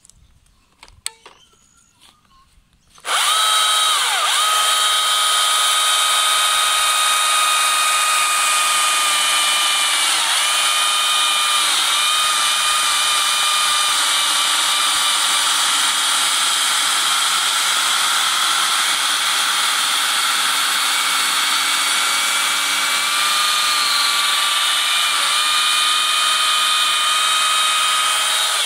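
Stihl MSA 220 C battery chainsaw with a tungsten-tipped chain cutting through a hard Moreton Bay Ash branch: a loud, steady electric whine that starts about three seconds in, dips briefly in pitch a few times under load, and cuts off near the end. Before it, a few faint clicks.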